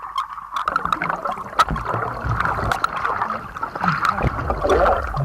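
Water sloshing and gurgling with bubbling, as a person crawls through a flooded tunnel and goes under the water, with many sharp splashy clicks.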